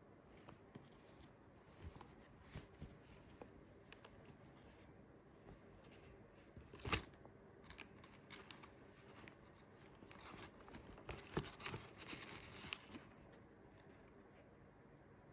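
Packaging being handled and unwrapped: faint, scattered rustling, crinkling and small taps, with one sharper knock about halfway through and a busier patch of crinkling near the end.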